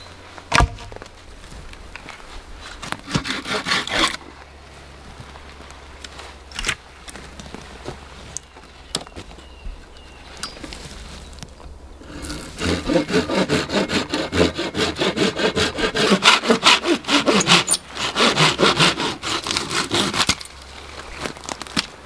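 Hand saw cutting through a wooden branch in quick, even back-and-forth strokes: a short bout about 3 seconds in, then a longer steady run through most of the second half. A sharp knock about half a second in.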